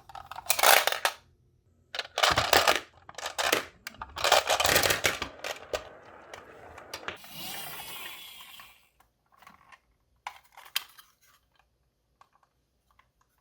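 Marbles clattering and rolling down a toy marble run: several rattling bursts of clicks, then about two seconds of steady rolling, then a few scattered ticks.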